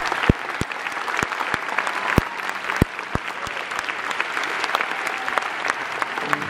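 Large audience applauding, a dense patter of clapping with some loud single claps close by.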